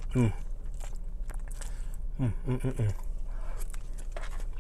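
A man chewing a mouthful of taco pasta, with soft clicking mouth sounds, and humming "mm" in approval: once just after the start and three times in quick succession about two seconds in.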